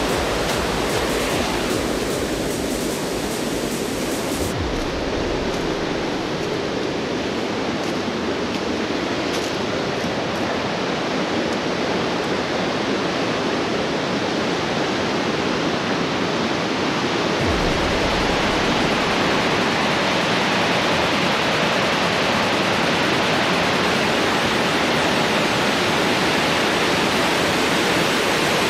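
Steady rushing of a waterfall, water cascading down broad granite slabs. It grows a little louder about two-thirds of the way through.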